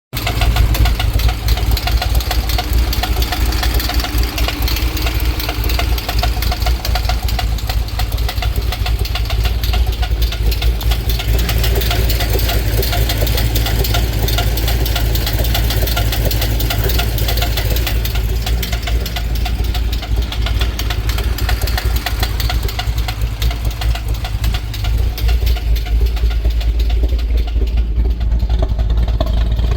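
A 2008 Chevrolet Corvette Z06's LS7 V8 running steadily with a tapping from the valvetrain, which the owner takes for a collapsed lifter: one pushrod has no preload.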